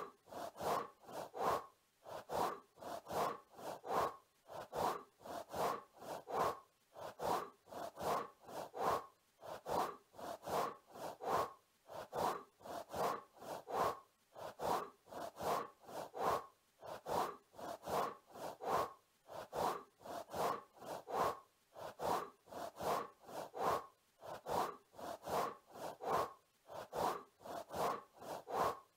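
Looped scraping, rattling sound effect: groups of four or five quick scrapes that repeat evenly about every two and a half seconds.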